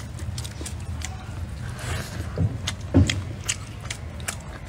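A person chewing meat from a pork bone close to the microphone, with a string of short wet mouth clicks and smacks. There is a louder low thump about three seconds in.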